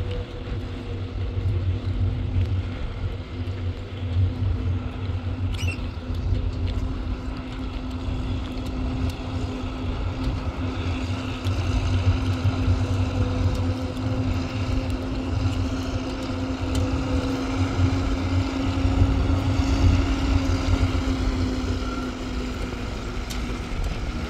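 An engine running steadily, with a low rumble and a held hum that drifts only slightly in pitch.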